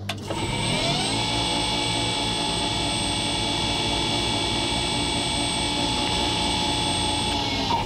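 2 HP 220 V three-phase motor of a KMG belt grinder, driven by a KBAC variable frequency drive, ramping up over about a second with a rising whine, then running steadily with the drive's high-pitched whine. Near the end the drive's brake stops it abruptly, a stop the owner finds a little too quick.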